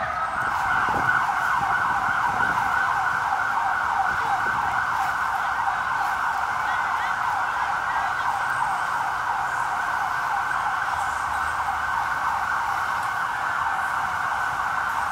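A siren sounding in a fast yelp, its pitch sweeping rapidly up and down without a break.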